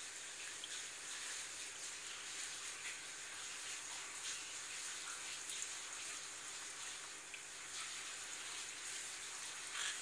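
Steady trickle of water in an aquarium, with a faint steady hum under it and a few light taps, the loudest near the end.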